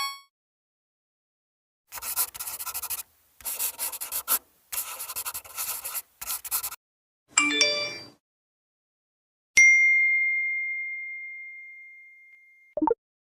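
A string of separate cute sound effects. It starts with the tail of a short chime, then comes several seconds of rapid scratchy clicking in groups, then a brief jingle of bright tones. Last, a single bell ding rings out and fades over about three seconds, with a short low blip just after it.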